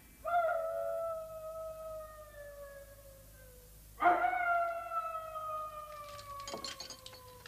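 A wolf howling twice: two long calls, each sliding slowly down in pitch, the second starting about four seconds in.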